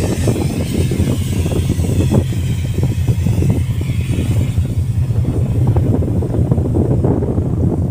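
Wind buffeting a phone's microphone on an open ship deck: a loud, uneven low rumble, with a faint hiss above it during the first few seconds.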